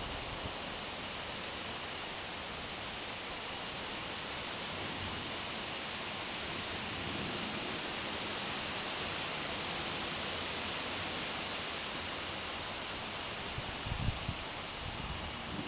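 Steady chorus of night insects, an even high-pitched buzz, over a wide outdoor hiss, with a brief low thump near the end.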